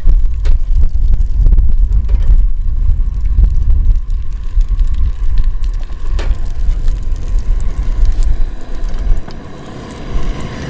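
Wind buffeting the microphone, a loud, gusty low rumble with a few faint clicks over it; the rumble eases near the end.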